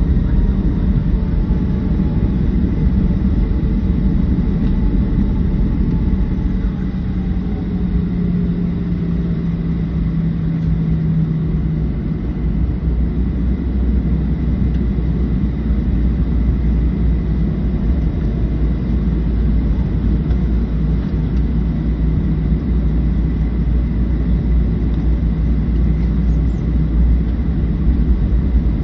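Cabin noise inside a Boeing 737-700 on departure: the steady rumble of its CFM56-7B engines and the airflow. A few engine tones slide slowly down in pitch over the first dozen seconds, then hold steady.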